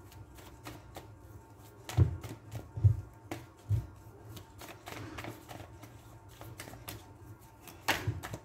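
Tarot cards being handled and shuffled, with many light card clicks and a few duller knocks about two to four seconds in and again near the end.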